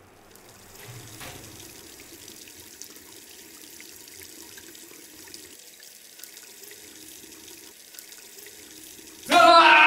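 Steady hiss of running water, as from a tap. Near the end a sudden loud pitched sound cuts in over it.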